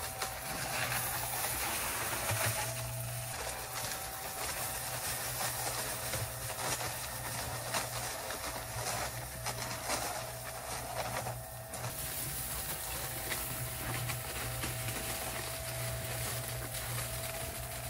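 Small portable electric cement mixer running with a steady low hum while its tilted drum turns and pours out wet concrete, the gravel in the mix giving a gritty rattle.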